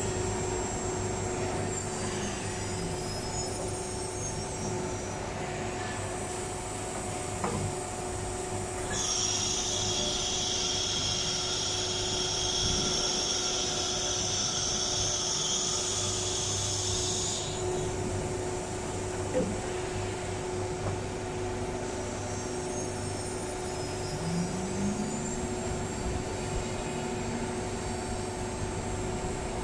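Automatic tool changer CNC router (STYLECNC STM1530C) running: a steady machine hum, with motor whines that shift in pitch near the start and again near the end. A harsh high hiss comes in for about eight seconds in the middle.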